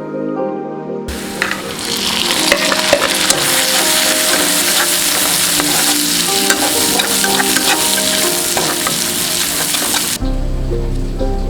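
Food sizzling and crackling as it is stir-fried in a pan, with the scrape and clatter of stirring; it starts about a second in and cuts off about a second before the end.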